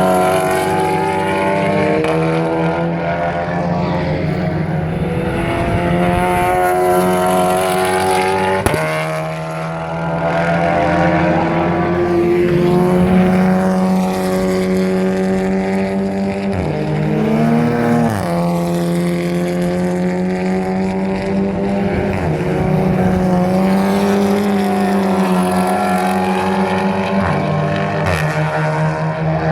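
TCR touring-car race engines at racing speed, several cars passing one after another, their pitch rising and falling through gear changes and pass-bys. A sharp bang about nine seconds in, with a few smaller cracks later, is an exhaust misfire.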